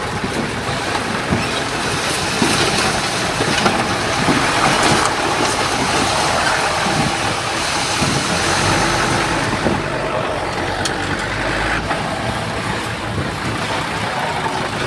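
Heavy diesel earthmoving machinery running steadily, with scattered clanks and knocks of metal over the engine noise; a deeper low hum swells for a few seconds about two-thirds of the way through.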